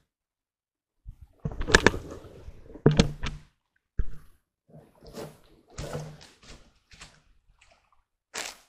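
About a second of dead silence, then a string of irregular sharp knocks and thuds mixed with rustling close to the microphone, typical of handling noise. The loudest knocks come about two and three seconds in, with another near the end.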